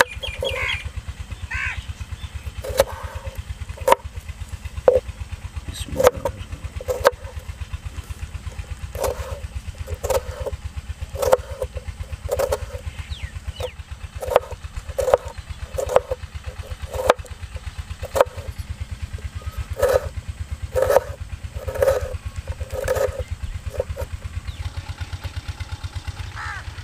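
Kitchen knife chopping tomato on a wooden cutting board: sharp knocks about once a second, in runs with short pauses between. A steady low engine drone lies underneath.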